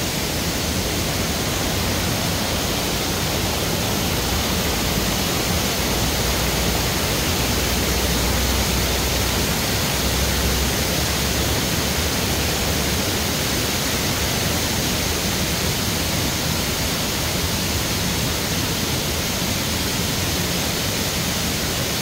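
Steady rushing of water over the shallow, wide cascades of a waterfall in spate: an even roar with no breaks.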